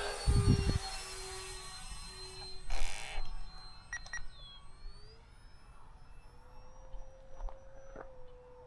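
A 4S 64 mm electric ducted fan on a small RC jet in flight, heard as a thin high-pitched whine that wavers in pitch. About halfway through it glides upward, and a lower steady tone joins it. Two brief bumps on the microphone, one early and one about three seconds in.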